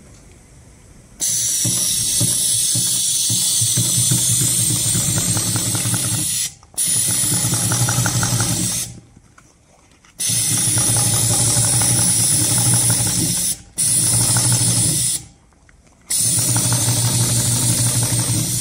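Heavy-duty double-needle triple-feed canvas sewing machine stitching a binding onto canvas, in five runs of a few seconds each with short stops between them. Each run is a fast, even stitching rhythm with a loud steady hiss of air from the needle-cooling nozzle, starting and stopping with the machine.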